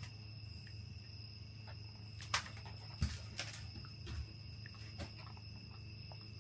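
Insects trilling steadily at a high pitch over a low hum, with a few light clicks and knocks in the middle.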